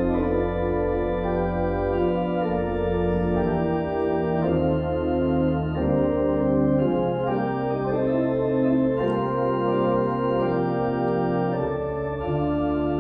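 Church organ playing slow, sustained chords over held bass notes, the chords changing every second or two.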